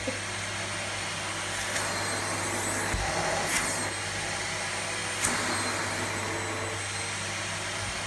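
Vacuum cleaner running steadily as its nozzle works over a quilted blanket, with a few brief clicks along the way.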